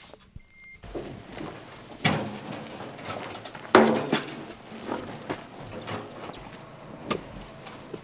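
Shovels scooping mud and soil into plastic sandbags: scattered scrapes and knocks over a steady outdoor background, the loudest knock about four seconds in.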